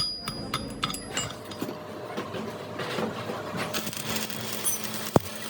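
Workshop handling noises: a quick run of sharp clicks and knocks in the first second, then uneven scraping and clattering, and one loud thud about five seconds in.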